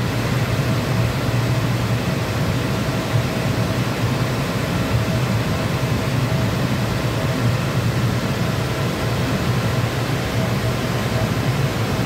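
Liebert DS computer-room air conditioner running: a steady rush of air from its blower fans with a low machinery hum and a faint steady whine. The unit is running on compressor 1 only, with compressor 2 off.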